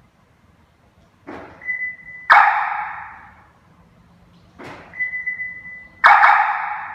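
Hollywood Siren Plus car security siren playing its 'Arrow 3' sound effect through its speaker: a short rush of noise, a steady high tone, then a loud noisy burst that fades over about a second. The sequence plays twice.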